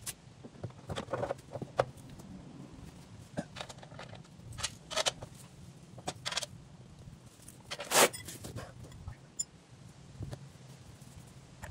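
Scattered metallic clicks, clinks and knocks as a chrome front bumper and its mounting bolts are handled and fitted to the front of a Toyota Land Cruiser. The loudest knock comes about eight seconds in.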